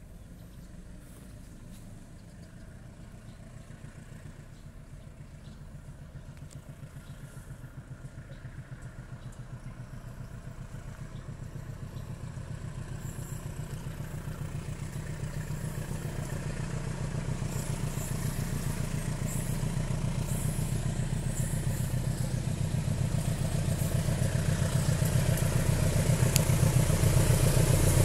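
KAI CC201 diesel-electric locomotive hauling a container freight train, its diesel engine running with a low, pulsing throb that grows steadily louder as the train approaches.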